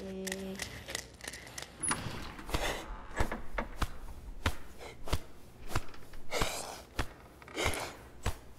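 Sharp clicks and knocks at irregular intervals, with a few longer breathy rushes between them. A held musical chord fades out in the first second.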